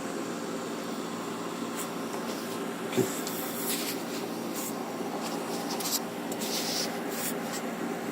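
Light rustling and scraping handling noises over a steady room hum, with one knock about three seconds in.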